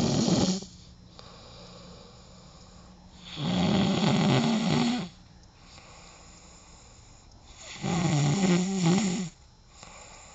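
A man snoring in a heavy drunken sleep. Loud snores come about every four seconds, each lasting about a second and a half, with quieter breathing between them.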